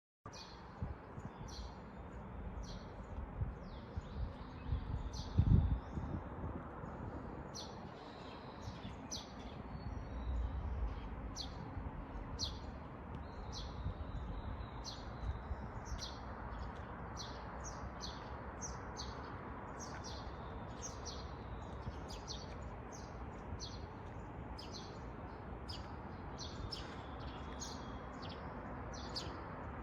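Small birds chirping in short, repeated calls over a steady background hiss, with a single dull thump about five and a half seconds in.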